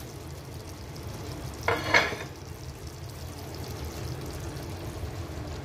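Food sizzling faintly and steadily in a pot on the stove, with one brief, louder sound about two seconds in.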